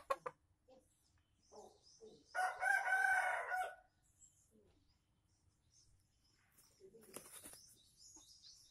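Red junglefowl rooster crowing once, a short, clipped crow of about a second and a half, about two and a half seconds in. A brief rustle follows about seven seconds in.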